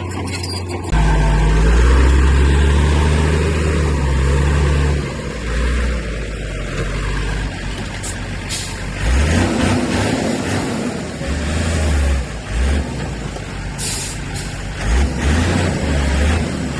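Heavy diesel earthmoving machinery at work: a big engine running low and loud, jumping up about a second in and then surging and easing in pulses, with a brief hiss near the end.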